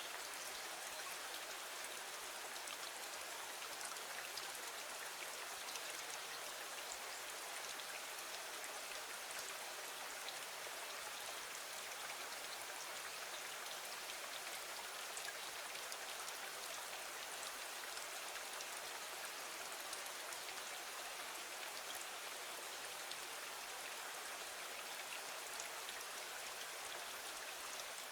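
Steady rain, an even hiss of many small drops pattering with no change in strength.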